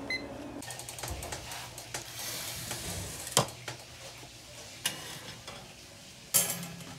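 Kitchen handling sounds: a metal baking tray and wire cooling rack knocking and clinking on a stone countertop, with a few sharp knocks and a louder metallic clatter near the end. A short high beep sounds right at the start.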